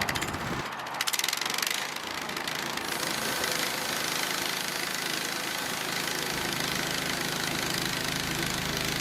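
Portable sawmill's gasoline engine running steadily, with a few clicks and a clatter in the first two seconds.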